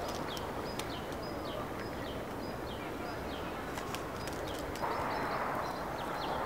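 Outdoor ambience with a short, high call repeated about twice a second, each call dropping in pitch, over a steady background hiss with scattered light clicks; a louder rushing noise comes in about five seconds in.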